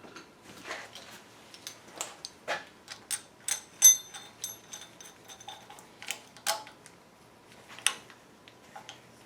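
Metal tools and engine parts clicking and clinking irregularly as they are handled. One ringing clank about four seconds in is the loudest.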